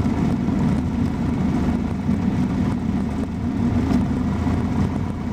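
Cessna 172's single piston engine and propeller running steadily at low power, a constant low drone.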